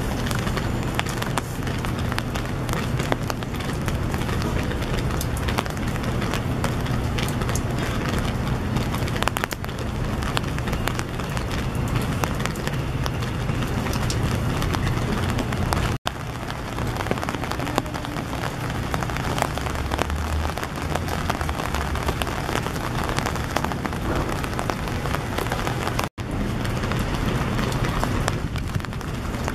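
Steady rain pattering, with many small drops ticking close by, over a constant low rumble. The sound cuts out for an instant twice.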